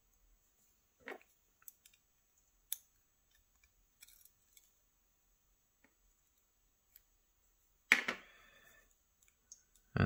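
Scattered small metallic clicks and taps of tweezers against the lock's brass cylinder and its pins and springs as they are pulled from the chambers. The loudest click, about eight seconds in, rings briefly.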